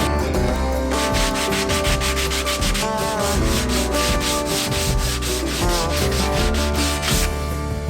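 Sanding walnut wood: a quick, even run of rasping strokes.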